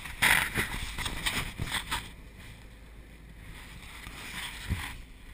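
Wind buffeting and rubbing on the camera microphone for about the first two seconds, then a steadier, quieter low rush of wind and water from a boat under way, with a single thump near the end.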